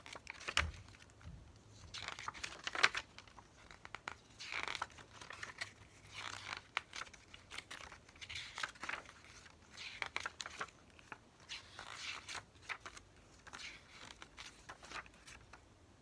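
Pages of a paper CD lyric booklet being turned one after another, a soft rustle of paper every second or two.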